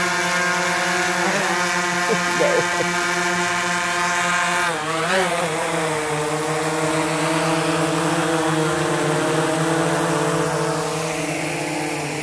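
DJI Phantom quadcopter's four propellers whirring in a low hover, a steady whine that wavers in pitch about five seconds in. Near the end the whine drops in pitch as it sets down and the motors begin to spin down.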